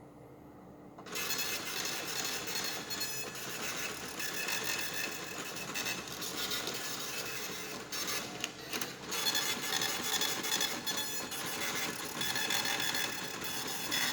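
Queue-number machine's ticket printer running, a busy mechanical whirring with a high-pitched edge that starts suddenly about a second in and cuts off abruptly at the end.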